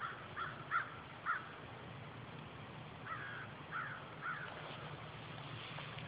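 A bird calling: four short calls in quick succession in the first second and a half, then three more about three seconds in.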